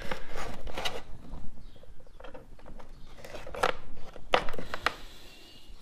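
Scratchy crackles and irregular clicks from fingers handling plastic-insulated wires and electrical tape, with a few sharper clicks about three and a half to five seconds in.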